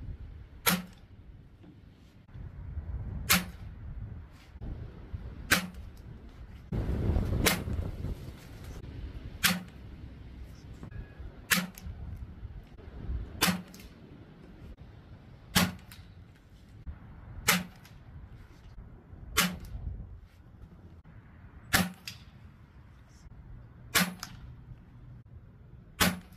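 Gamo Swarm Maxxim Gen 2 break-barrel air rifle firing pellets, about thirteen sharp shots at roughly two-second intervals. Wind rumbles on the microphone between the shots.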